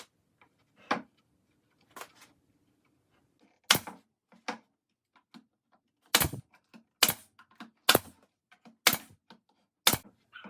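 Sharp knocks on wood: a few scattered ones at first, then five strong, evenly spaced strikes about a second apart in the second half.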